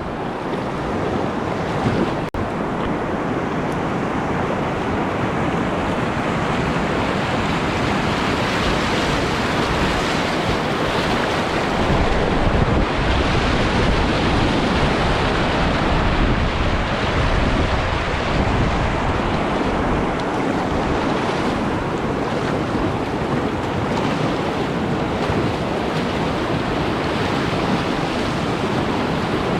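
Whitewater rapids rushing steadily and loudly, with wind noise on the microphone; a brief click about two seconds in.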